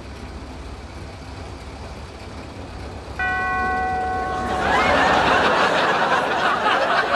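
A Mini's engine idles low. About three seconds in, a steady electronic beep from the car-park ticket machine sounds for about a second and a half as its display shows the charge. It gives way to a studio audience laughing, the loudest sound.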